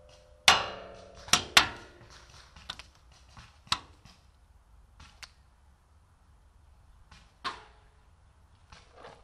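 Scattered single sharp pops of paintball play: markers firing and balls smacking cover. Loud ones come about half a second in, twice near a second and a half, near four seconds and at about seven and a half seconds, the first ringing briefly, with fainter pops between.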